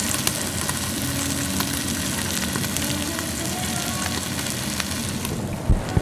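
Pork belly sizzling on a hot grill plate: a steady spitting hiss dense with fine crackles. A dull low knock sounds near the end.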